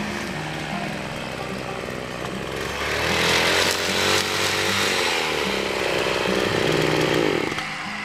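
Engine-powered brush cutter (two-stroke) running at high revs while cutting grass. It grows much louder about three seconds in as it comes close, and its note drops off abruptly near the end.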